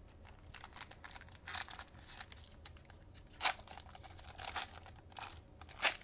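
Panini Chronicles card pack's foil wrapper crinkling and tearing as it is pulled open by hand, in irregular crackly bursts. The loudest come about a second and a half in, about three and a half seconds in, and near the end.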